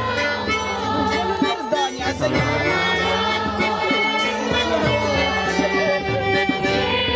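Kirtan: a crowd of devotees singing together with clapping, over a steady held instrumental drone with light rhythmic percussion.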